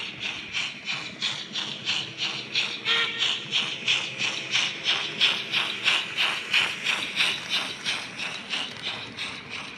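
Digital sound-decoder steam chuffing from Roco H0-scale BR 50 model steam locomotives running in double heading: a steady rhythm of sharp exhaust beats, about three to four a second, from the models' small speakers. It grows louder as the engine passes, about five seconds in, then fades.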